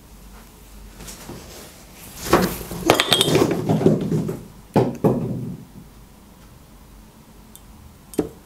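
A stemmed glass dessert bowl being handled on a table: a couple of seconds of scraping and clattering, then two sharp glass knocks in quick succession with a short ring, and one more click near the end.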